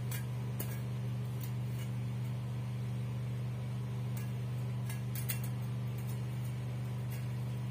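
A steady low hum with a few faint, light clicks and clinks scattered through it.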